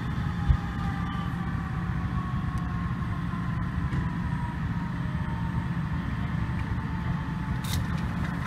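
Large vehicle engine running steadily with a low rumble, with faint tones slowly falling in pitch above it and a single thump about half a second in.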